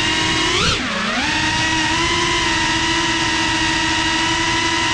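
FPV quadcopter's brushless motors whining steadily, recorded from the drone itself. Just under a second in, the pitch rises sharply and then drops away before settling back to a steady whine, as the throttle is punched and cut.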